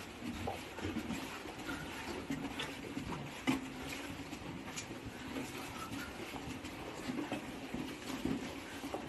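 Footsteps scuffing and crunching on loose gravel and broken rock in a narrow mine tunnel, an irregular run of small scrapes and clicks with one sharper knock about three and a half seconds in.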